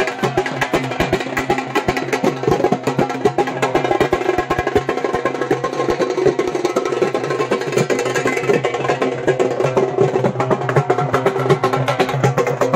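Music with fast, dense percussion strokes over steady held low tones.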